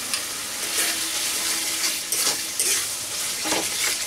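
Spice paste frying in freshly added ghee in a metal kadai, sizzling throughout, with a spatula repeatedly stirring and scraping against the pan.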